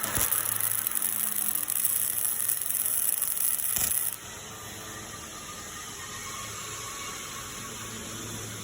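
Flux-cored MIG welding arc crackling and hissing. It stops about four seconds in, leaving a quieter steady hiss and low hum.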